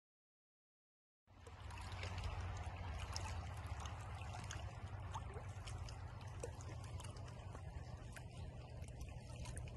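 Silence for about a second, then small waves lapping and trickling at the water's edge with many small splashes, over a low steady rumble.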